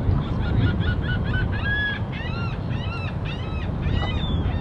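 A bird giving a quick run of short, honking calls, about three a second, over a steady low rumble.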